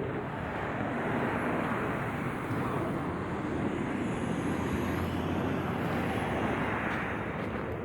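A vehicle passing by: a broad rushing noise that swells and fades again, with a faint high whine gliding in pitch in the middle.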